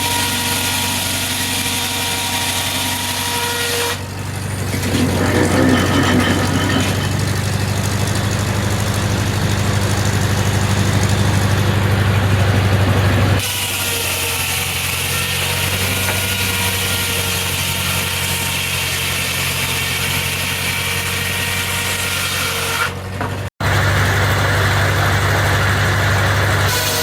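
Corley sawmill and its drive running steadily with a low machine hum. It grows louder and heavier a few seconds in, eases off about halfway through, and cuts out for a split second near the end before carrying on louder.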